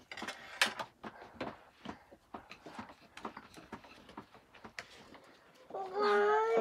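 Irregular small clicks and taps of a knife cutting fruit in the hand, with pieces dropping into a plastic bowl. Near the end a child's voice starts up in a long, wavering sung note.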